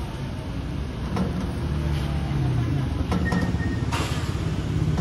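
Street traffic: a motor vehicle's engine running with a steady low rumble, and a few sharp clicks over it.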